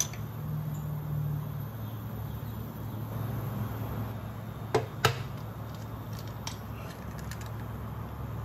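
An egg frying in oil in a ceramic frying pan, a steady sizzle over a low hum, with two sharp knocks close together about halfway through.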